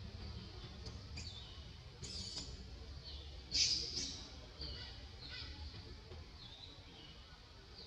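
High-pitched animal calls: short chirps that slide down in pitch, repeated roughly once a second, with a louder, harsher squeal about three and a half seconds in.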